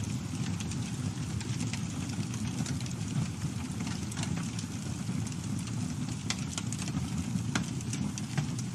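Campfire burning: a steady low rumble of flames with irregular sharp crackles and pops from the burning wood, a few of them louder than the rest.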